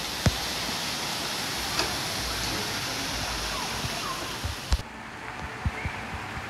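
Water pouring down an artificial rock waterfall into a pool: a steady rushing hiss that cuts off abruptly about three-quarters of the way through, leaving a quieter outdoor background with a few light knocks.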